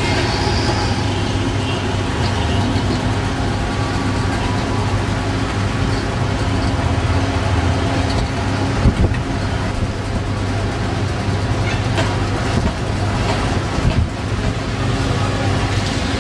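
Steady, dense noise of heavy monsoon rain and wind, with a low rumble of street traffic beneath it and a couple of brief knocks.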